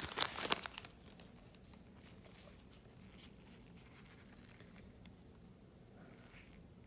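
Foil wrapper of a trading-card pack crinkling as it is torn open, stopping about a second in; then only the faint rustle of cards being handled.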